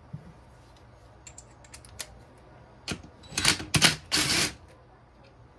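Metal engine parts and hand tools clicking and clattering on a workbench during a dirt-bike engine teardown, with a knock about three seconds in and three louder rattling, scraping bursts just after it.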